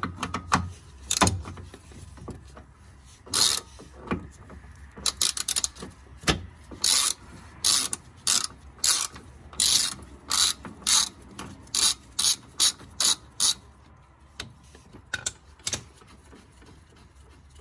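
Hand ratchet with a socket clicking in short back-and-forth strokes, about two a second, as it backs a bolt out; a few sharp metal clicks come first, and the ratcheting stops a few seconds before the end.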